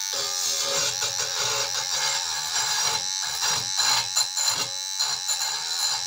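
Parkside PMBSA 20-Li A1 rotary multi-grinder running at its low speed with a small wire brush, scraping against a steel profile in uneven bursts over a steady motor whine. The tool does not stall under the load.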